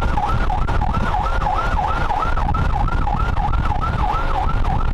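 Electronic siren hooter fitted to a modified Mahindra Thar, sounding a fast warble that rises and falls about three times a second, over a heavy low rumble of road and wind noise from the moving vehicles.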